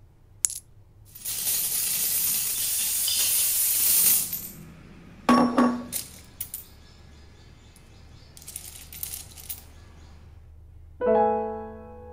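Indonesian rupiah coins: one clinks as it drops through the slot of a plastic bottle coin bank, then a mass of coins rattles out in a spill lasting about three seconds. After that come scattered clinks and coins slid across one another by hand. Near the end, music starts with a ringing chord.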